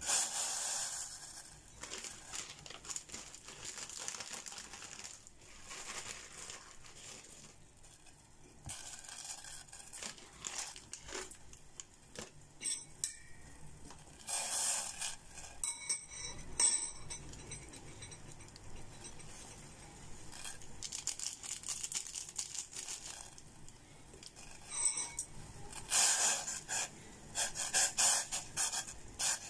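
A metal utensil scraping and clinking against a stainless steel pot as instant noodles are stirred in boiling water. There are louder spells of scraping about halfway through and again near the end.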